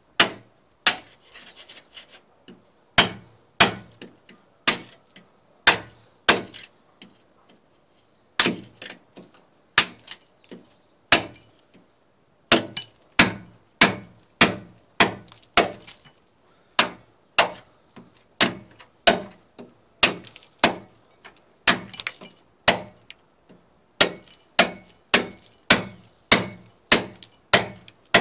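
Club hammer striking a cold chisel to chip a hole through a concrete block wall: sharp blows, spaced out at first, then a steady run of a little under two a second from about twelve seconds in.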